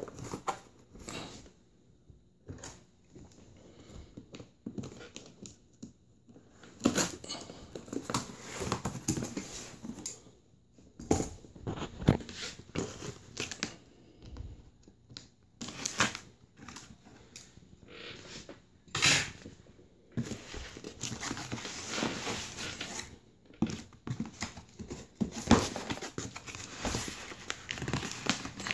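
Cardboard shipping box being opened: scissors cutting the packing tape, tape tearing away and the cardboard flaps rustling and scraping, in irregular bursts with a few sharp knocks.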